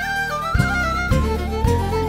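Background music: an instrumental melody stepping over low sustained notes that change about every half second.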